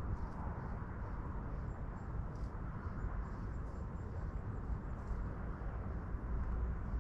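Steady low rumble and wind noise of a Mazda MX-5 Miata running with the top down.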